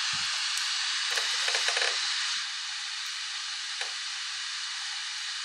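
Small laptop blower fan running on adapter power, a steady airy hiss that drops slightly in level a little over two seconds in. It keeps spinning instead of stopping after about five seconds, the sign that the CPU-circuit fault is cleared now that the displaced diode is back in place.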